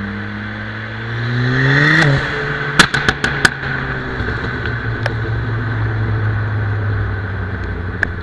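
Turbocharged Ford Fiesta ST engine revving up hard for about two seconds, then lifting off. A quick run of about five sharp exhaust pops and bangs follows from its pops-and-bangs tune, then the engine runs on steadily.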